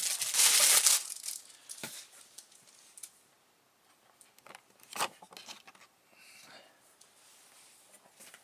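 Packaging being torn open, with loud crinkling for about the first second, then a few soft rustles and light taps, the clearest about two and five seconds in.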